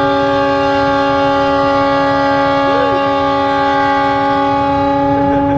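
Locomotive air horn held in one long, steady blast of several tones together, over the low rumble of the train running.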